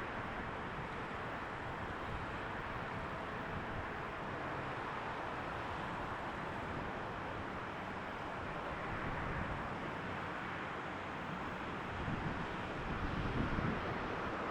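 Airbus A330 jet engines heard as a steady rushing noise, growing louder with more low rumble near the end.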